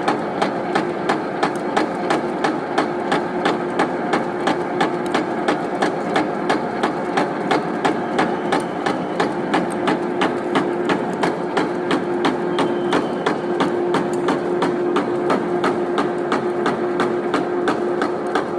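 Lathe running with a 25 mm drill boring into the workpiece, opening up a smaller pilot hole, with a steady hum and an even ticking about three times a second.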